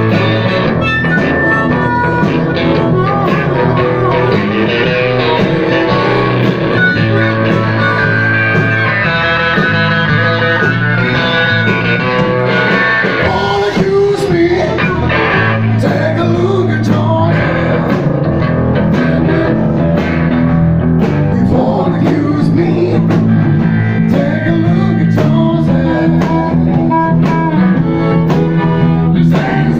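Live blues-rock band playing loud, with electric guitars and drums and a singer at the microphone.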